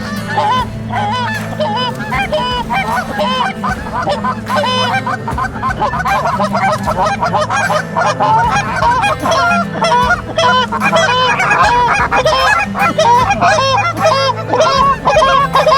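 Canada geese honking: a dense chorus of many overlapping honks with no break, over a steady low hum.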